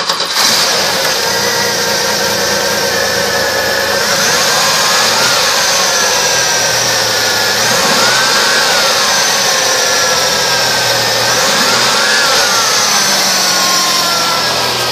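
1994 Pontiac Firebird engine running at idle, revved up and let back down three times.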